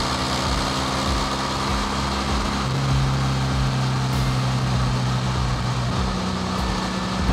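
1973 Volkswagen Super Beetle 1303S's air-cooled 1.6-litre flat-four running under way, with road noise. The engine note is steady and changes in pitch about two and a half seconds in.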